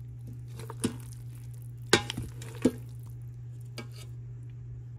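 Utensils stirring macaroni and cheese in a stainless steel Instant Pot inner pot, knocking sharply against the metal four times, the loudest about two seconds in. A steady low hum runs underneath.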